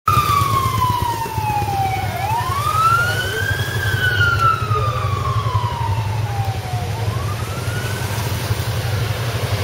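A siren wailing, its pitch sweeping slowly down and up about twice and fading near the end, over the steady low rumble of a moving vehicle.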